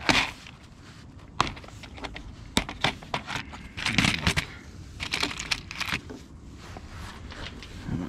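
Plastic fuse assortment case being handled and opened, with sharp plastic clicks and rattling as a hand picks through the blade fuses inside. The loudest rustling comes about four seconds in and again near five to six seconds.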